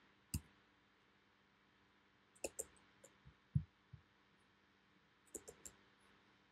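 Scattered soft clicks and taps of a computer keyboard and mouse: one near the start, small clusters about two and a half seconds in and a little after five seconds, with a duller tap in between.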